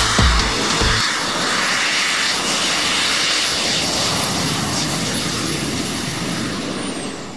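Multirotor hoverbike's propellers running in low flight: a loud, steady rushing drone that eases off slightly near the end. A few deep thumps sound in the first second.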